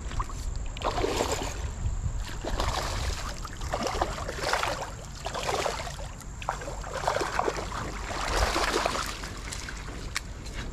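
Creek water splashing in irregular bursts, roughly one every second or so, as a hooked smallmouth bass thrashes at the surface while being reeled in.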